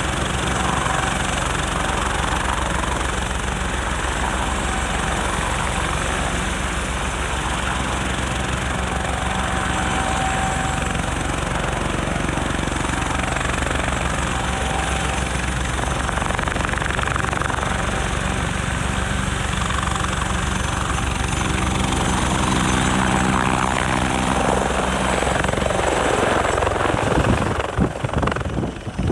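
Bell 430 twin-turbine helicopter hovering close by: steady rotor-blade chop with a high turbine whine over it. Near the end the rotor downwash blows snow over the camera and the sound turns into gusty wind buffeting on the microphone.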